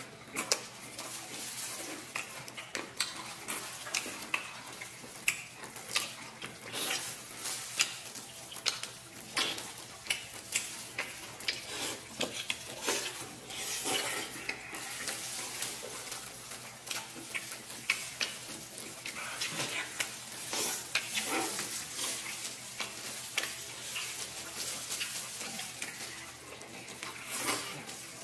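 Close-up eating sounds of two people chewing and gnawing clear-stewed beef rib meat off the bone by hand: a steady run of irregular wet smacks and clicks.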